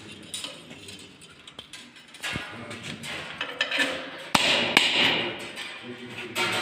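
A few sharp knocks of a hammer on metal, the loudest about four seconds in, followed by a second or so of noise.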